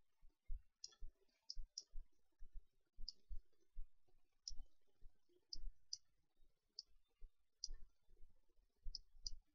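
Faint computer mouse clicks, about a dozen at irregular intervals, with soft low bumps in between.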